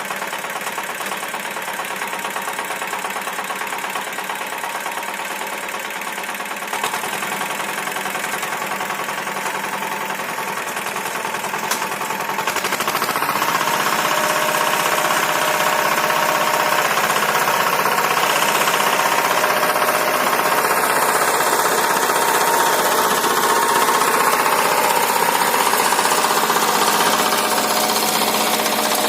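Engine of a converted rotary tiller running steadily with a rapid knocking beat while working between potato rows; it gets louder about 13 seconds in.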